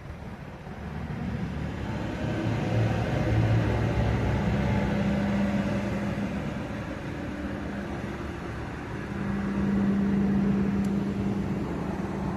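An engine running with a steady low hum over a noisy rumble, growing louder from about a second in, easing off, then swelling again around ten seconds.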